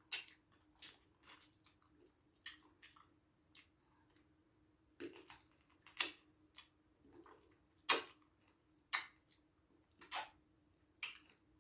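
Wet mouth smacks and squelches of someone eating eba with slimy ogbono soup by hand and licking her fingers: a dozen or so short, irregular smacks.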